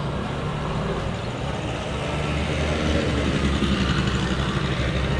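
A motor vehicle's engine running steadily at low revs, with general street noise.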